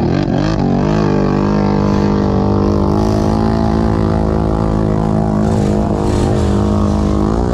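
ATV engine running close up at a steady, moderate throttle while wading through shallow floodwater. The pitch holds nearly even and rises briefly near the end as the throttle opens.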